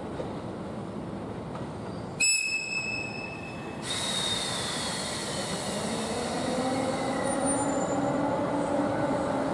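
EF64 electric locomotive's air whistle sounds once, a high piercing tone lasting about a second and a half, over the rumble of the slowly moving locomotive. The running noise then grows louder, with a faint high tone sliding down and lower tones rising slowly toward the end.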